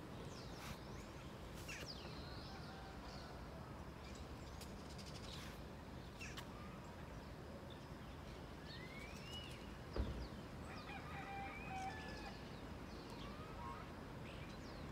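Birds calling with scattered short chirps and whistled glides over a faint steady background hum, and a single sharp knock about ten seconds in.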